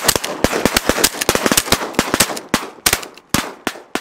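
Several hunters' shotguns firing a rapid volley of overlapping shots at flying snow geese, thinning out near the end.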